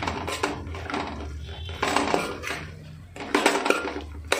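A metal spoon scraping and knocking against a metal cooking pot in a few separate strokes, stirring a frying onion, tomato and green chilli masala.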